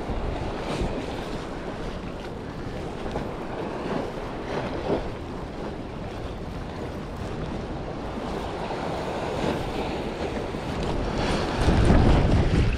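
Wind buffeting the microphone over the wash of harbour waves, a steady noisy rumble that gusts louder near the end.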